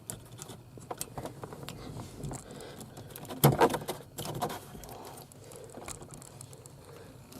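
Scattered light clicks and rattles of hands working on the plastic steering-column parts and connectors, with a louder cluster of knocks about three and a half seconds in.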